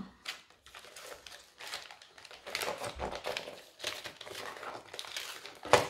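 Plastic cosmetics packaging crinkling and rustling in irregular bursts as products are handled, with one sharper, louder crackle just before the end.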